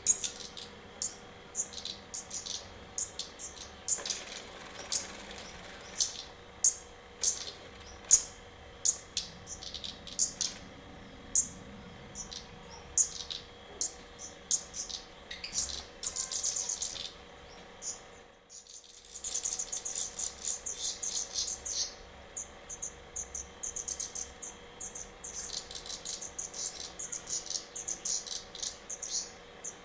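Black redstarts calling: a long series of short, high-pitched chirps, with bursts of dense chittering about halfway through and again just after.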